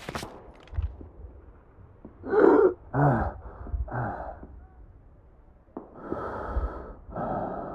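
A person gasping and choking, as on gas: four short, hoarse gasps close together, then two long wheezing breaths near the end.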